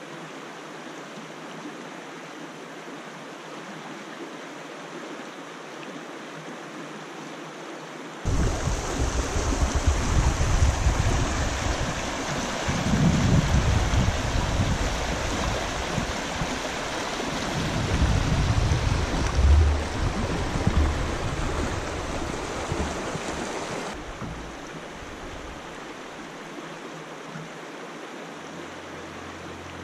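Shallow river riffle, water rushing steadily over rocks. About eight seconds in it turns abruptly louder and closer, with a low uneven rumble mixed in. Some sixteen seconds later it drops back to a quieter rush.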